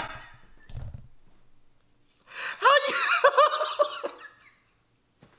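A man laughing hard in a run of short, repeated bursts, starting about two seconds in and dying away about two seconds later.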